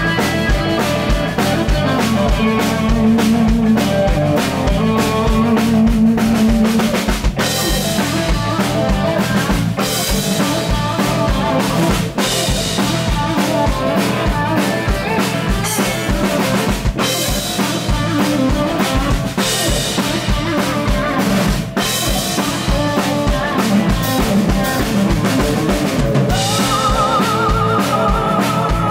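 Live rock band playing an instrumental passage: an electric guitar lead over a full drum kit with a steady beat. Near the end the guitar holds a high, wavering note.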